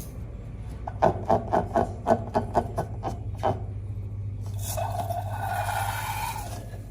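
Slime being worked by hand: a quick series of about ten short squishing strokes, about four a second, then a continuous rubbing, squelching stretch of slime near the end.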